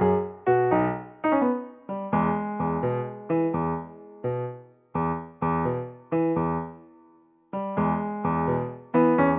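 Background music: a light keyboard tune of struck notes and chords, each dying away. A held note fades out about seven seconds in before the tune picks up again.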